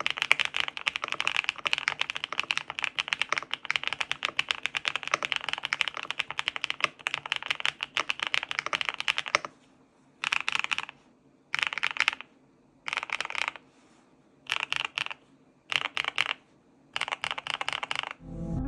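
Mechanical keyboard with HMX Hyacinth V2 switches, a GMK67 in stock build, being typed on. There is fast continuous typing for about nine seconds, then six short bursts of keystrokes with brief pauses between them.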